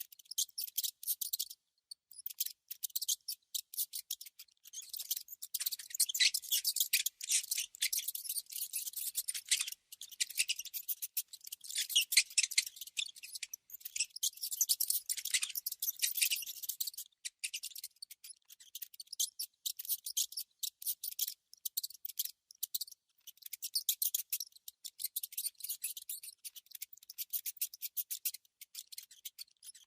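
Mouse making rapid, high-pitched scratchy clicks in dense runs, broken by short pauses.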